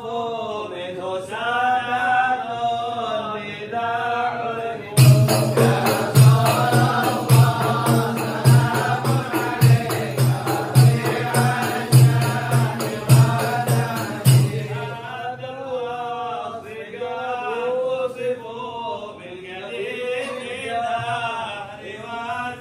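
Islamic devotional chant sung as a music track, the melody wavering and drawn out. A steady frame-drum beat with jingling, tambourine-like strokes joins about five seconds in and drops out again about ten seconds later.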